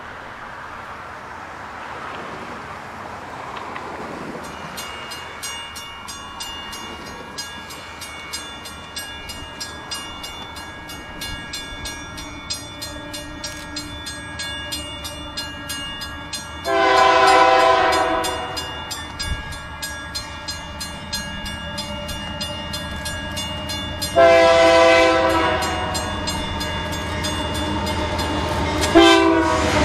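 A Union Pacific diesel locomotive's air horn sounds the grade-crossing signal, a chord of several tones: two long blasts, then a short one near the end. Under it a crossing bell rings steadily, and the low rumble of the approaching diesels and train grows louder.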